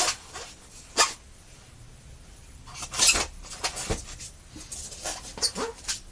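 Air rifle kit parts being handled and set down: a series of uneven knocks and clinks, the loudest about three seconds in.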